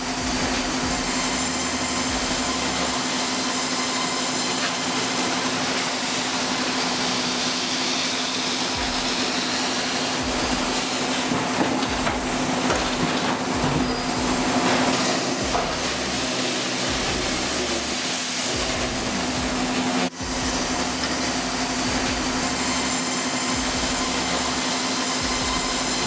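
Sawmill machinery running steadily: a constant low hum under a loud, even mechanical noise, cut off briefly about twenty seconds in.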